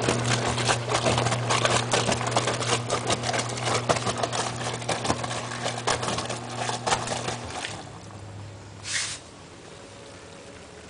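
Washing machine running with its hatch open: the motor hums steadily while the water churns and splashes in the drum. The motor stops about seven and a half seconds in, leaving a quieter low hum, a short hiss near nine seconds, then a low background.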